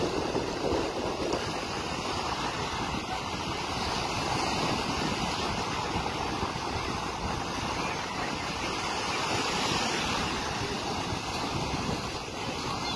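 Rough sea surf breaking and washing ashore, a steady rushing noise.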